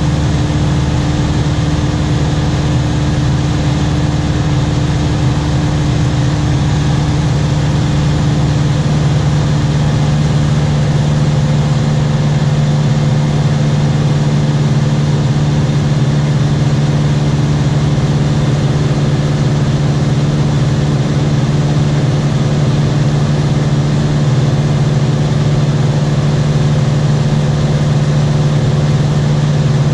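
A small aircraft's engine drones loudly and steadily, heard from inside the cabin in flight, with a deep hum. About a third of the way in, part of the hum shifts slightly lower in pitch.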